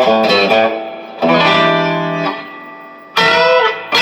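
Electric guitar on a Samick GRL-1 Les Paul copy playing through Lace Hemi Nitro pickups, with both the neck and bridge pickups split to single-coil and wired out of phase. It plays quick picked notes, then a chord struck about a second in that rings out and fades, then a fresh attack near the end with a bent note.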